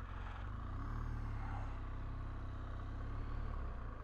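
BMW R1200GS boxer-twin engine running under a steady low rumble. A faint engine note rises about half a second in, holds, and fades away near the end.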